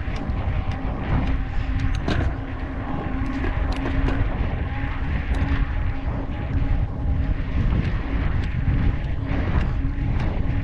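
Wind rumbling heavily on the microphone of a mountain bike rolling along a concrete path, with a steady low hum and scattered small clicks and rattles from the bike over the surface.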